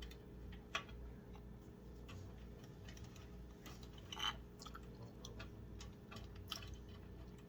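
Faint, irregular clicks and light taps of computer cables and plastic parts being handled inside a PC case during cable management, with the sharpest clicks about a second in and just past the middle.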